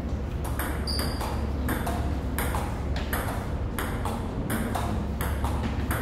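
Table tennis rally: the ball clicks off bats and table back and forth about twice a second, over a steady low hum. A brief high squeak about a second in.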